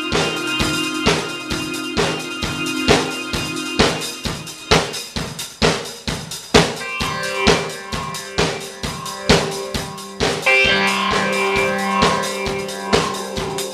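Live band jamming: a Yamaha drum kit keeps a steady beat of bass drum and snare, about two hits a second, under sustained keyboard and guitar tones. The held chord changes about ten seconds in.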